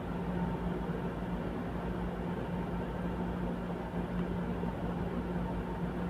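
A steady mechanical hum over a constant hiss, even and unchanging throughout.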